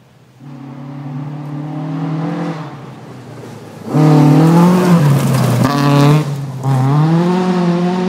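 Rally car engine at speed on a gravel stage. It is heard more faintly for the first couple of seconds, then turns loud about four seconds in as the car comes past close by. Its revs rise, drop briefly and climb again, with gravel spraying from the tyres.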